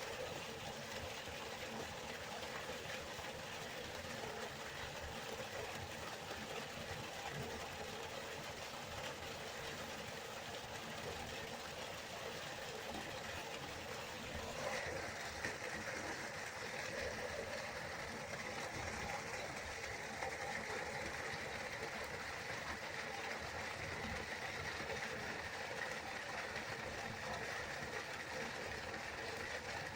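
River water flowing and rushing steadily; about halfway through the rush turns brighter and more hissing.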